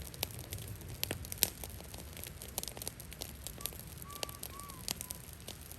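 Brush fire of cedar branches crackling, with many irregular sharp pops over a low steady rumble. A faint short whistle sounds about halfway through.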